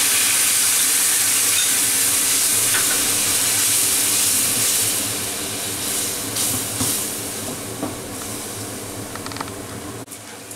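Yogurt and spice paste sizzling as it hits hot oil in a nonstick frying pan while a wooden spatula stirs it. The sizzle holds strong for about five seconds, then dies down gradually, with a few light scrapes of the spatula near the end.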